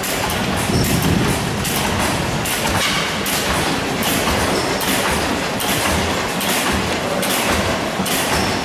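Antique stationary gas engines running: a steady, even mechanical clatter of firing strokes and clanking parts, about three beats a second.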